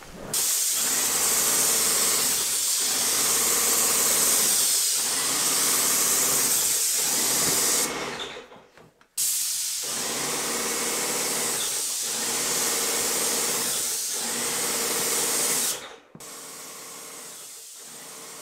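Wagner Control Pro airless paint sprayer spraying paint onto a wall: a loud, steady hiss from the spray gun with a hum beneath it, its pressure turned up to cut tailing at the edges of the fan. The spray cuts out for about a second roughly eight seconds in, then runs again, and is quieter from about sixteen seconds.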